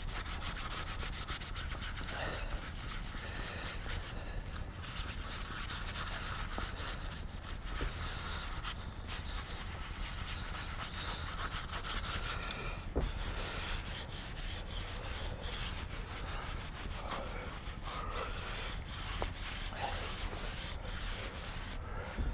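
Paper towel rubbing quickly back and forth over an engraved metal plaque, wiping the excess black lacquer-stick fill off its surface. One short knock partway through.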